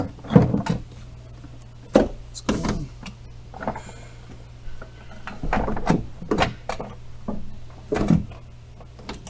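Irregular knocks, clunks and clatter of hands working the ABS brake module loose from its mounting in the cowl area, over a steady low hum.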